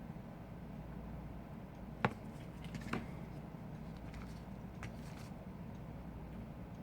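Light clicks and taps of small tools and parts during the reassembly of an iPhone 5, with a sharper click about two seconds in and another about a second later. A steady low hum runs underneath.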